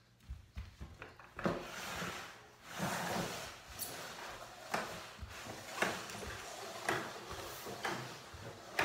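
A person sliding and scooting across a tiled floor, with footsteps at first, then a stretch of scraping. After that come sharp scuffs and slaps of hands and clothing on the tile about once a second.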